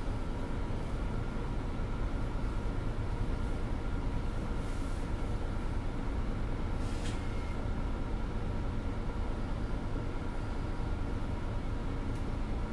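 Mercedes-Benz articulated city bus with a ZF Ecolife automatic gearbox, heard from inside the cabin: a steady, low running rumble. A short hiss comes about seven seconds in.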